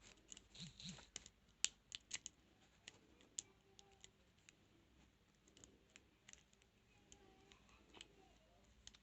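Faint, irregular metallic clicks and scratches as a rake pick and tension wrench work the pins of a transparent practice padlock, the loudest click about a second and a half in.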